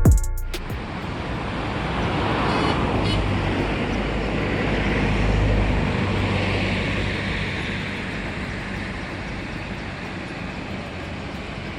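Road traffic noise: a steady rush of vehicles, swelling a little midway.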